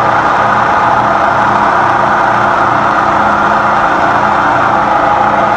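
Lagun manual knee mill running, with an end mill in a Cat 40 tool holder steadily side-milling a metal block.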